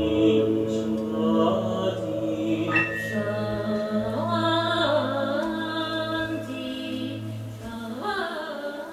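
Choral singing in long, held, chant-like notes that slide up and down, over a low steady drone. The drone drops out near the end, and the music slowly grows quieter.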